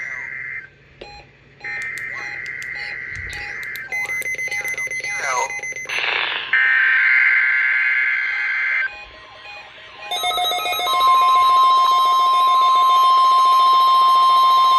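Emergency Alert System header data bursts from a weather radio test: harsh buzzing screeches, the first ending just after the start and two more at about two and six and a half seconds in, with glitchy clicks and sliding tones between them. About ten seconds in a long steady warning-alarm tone begins and holds.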